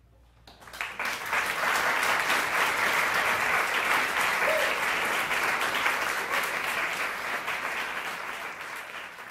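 Audience applauding in a small hall: the clapping breaks out about half a second in after a brief hush, holds dense and steady, and tapers off toward the end.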